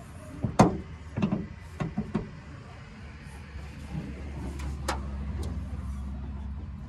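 Sharp clicks and knocks, several in the first two seconds and two more later, as the socket end of a gas hood strut is worked onto the ball stud on a Toyota Camry's hood. A steady low rumble runs underneath.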